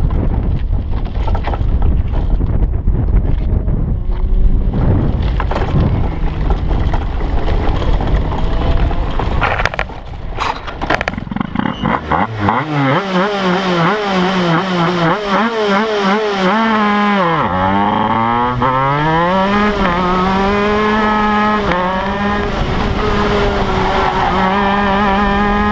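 Wind buffeting and rumble while a shifter kart rolls. About halfway through, the kart's 125cc two-stroke engine comes in plainly, its pitch rising and falling as it revs up and down.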